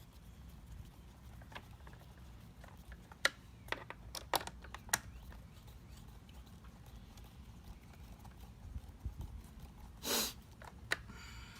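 Scattered sharp clicks and taps of a Phillips screwdriver working the screws of a pole saw's plastic chain cover, most of them a few seconds in, over a low steady rumble. A short rustling burst comes near the end.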